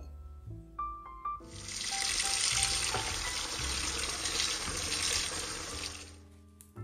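Kitchen tap running into a bowl of water while hands swish and wash coriander leaves. The water starts about a second and a half in and fades out near the end.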